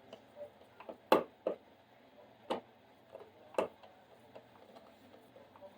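A screwdriver tightening the mounting screws of a wall switch: sharp, irregular clicks and taps of metal on metal, four louder ones in the first three and a half seconds and fainter ones after.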